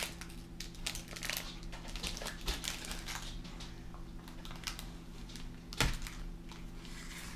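A Feastables chocolate bar's wrapper being peeled and unfolded by hand, with quick crinkles and crackles throughout and one louder knock about six seconds in.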